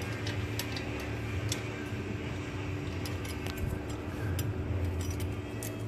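Scattered light metallic clicks and ticks of hand tools working the rocker arms and adjusting screws of an air-cooled VW engine during a valve adjustment, over a steady low hum.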